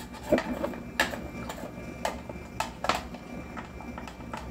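Light clicks and knocks of a metal measuring cup as chopped onions are scooped and packed into it, a handful of sharp taps at irregular intervals.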